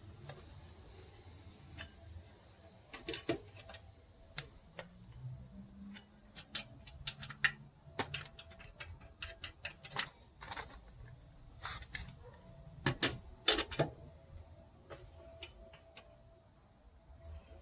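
Irregular metallic clicks and clinks of lug nuts and tools being handled while a car wheel is taken off, with a sharper knock about 13 seconds in.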